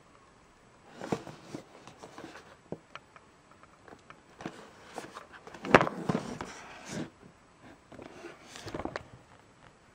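Cardboard box being handled and turned over by hand: irregular rubbing, scraping and light knocks, with one sharp knock a little past the middle.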